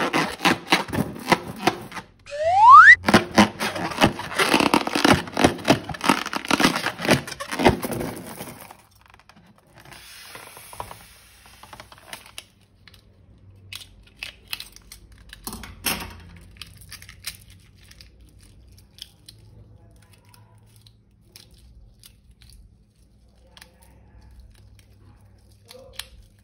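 Balloon slime being squeezed and handled: dense crackling and squishing, with a short rising rubbery squeak about two seconds in. After about eight seconds it falls to quieter, scattered clicks and squishes.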